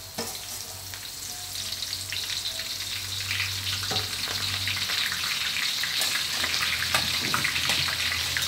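Holy basil leaves deep-frying in hot oil in a wok, crisping: a dense crackling sizzle that swells over the first few seconds after the leaves go in, then holds steady, with a few sharp pops.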